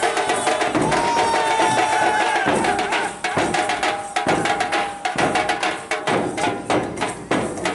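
Group of large dhol barrel drums beaten fast and loud in a dense, driving rhythm, with strokes coming many times a second.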